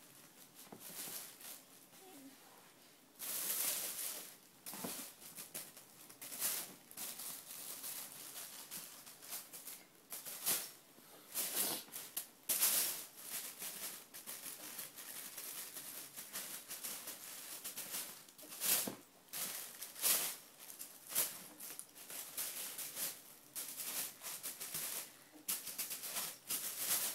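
Thin plastic shopping bag crinkling and rustling in irregular bursts as a cat rubs its head against it and burrows into it.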